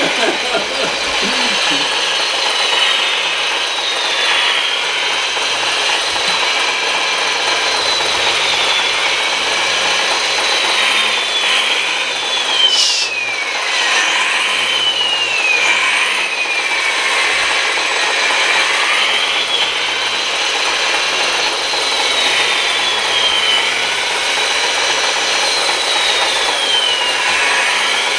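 Small electric motors and gearboxes of radio-controlled construction machines running, with a whine that rises and falls over and over as the machines speed up and slow down, over a constant gear rattle. A single sharp knock about halfway through.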